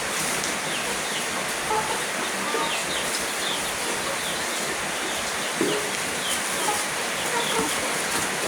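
Chickens clucking and calling with many short, scattered calls over a steady hiss.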